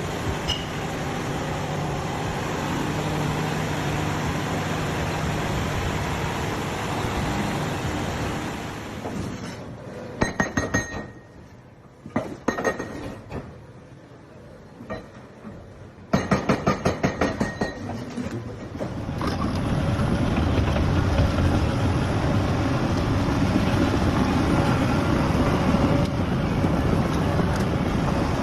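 Excavator running steadily. Midway comes a quieter stretch with two bursts of rapid metallic clanking, about six clanks a second, then the machine runs louder and lower.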